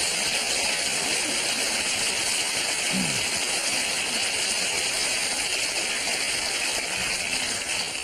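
A steady, loud hiss-like noise that masks everything else, with faint voices underneath.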